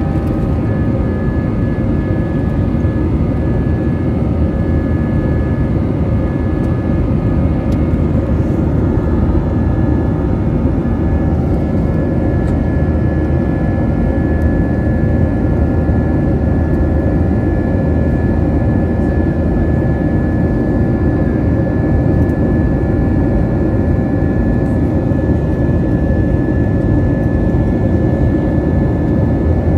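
Cabin noise by the window of an Airbus A320 climbing out after takeoff: the steady rush of airflow and its IAE V2500 turbofan engines, with several steady whining tones over it.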